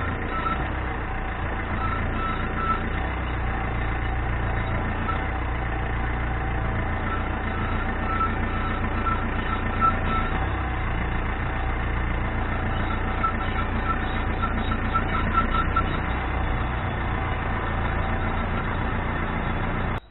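BMW E46 320d running under way, with a steady low drivetrain hum and a high, rhythmic squeak repeating in quick runs that come and go. The squeak is the creak of a worn universal joint on the propeller shaft at the differential.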